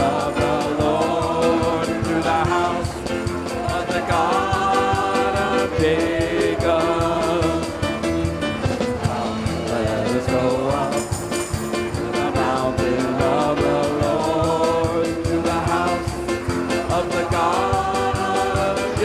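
Live worship music: an upbeat band song with a steady drum beat and voices singing.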